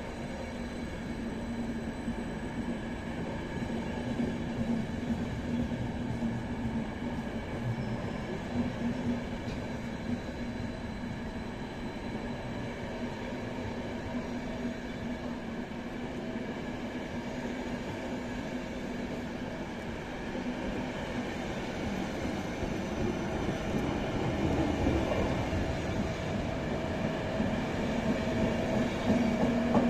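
Long night train of passenger coaches and car-carrier wagons rolling past along the platform. Its wheels make a steady rumble with a faint held hum, growing louder over the last ten seconds or so.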